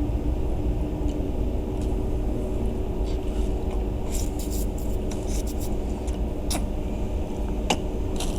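Steady low rumble and hum of a running vehicle engine, with a few light clicks and rustles scattered through it.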